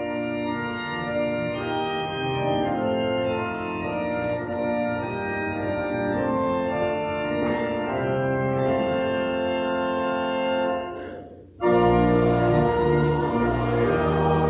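Church organ playing slow sustained chords. It breaks off briefly about three-quarters of the way through, then comes back louder with deep bass notes added.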